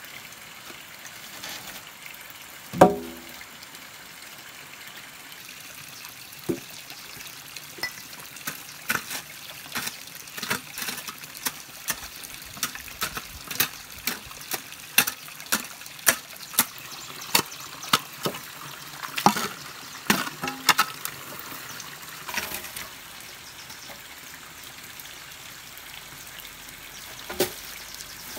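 Water trickling steadily. A loud knock with a short ring sounds about three seconds in, followed by a long run of sharp clicks and taps, one or two a second, that stops a few seconds before the end.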